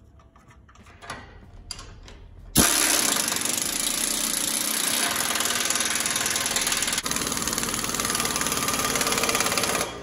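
Air impact wrench hammering on the control-arm mounting nuts of a truck frame: it starts suddenly about two and a half seconds in, runs steadily for about seven seconds with a brief break near the middle, and stops just before the end. Light clicks of tool handling come before it.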